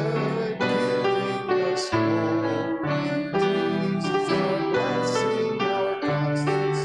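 Piano or electric keyboard playing slow sustained chords, the notes changing about once a second.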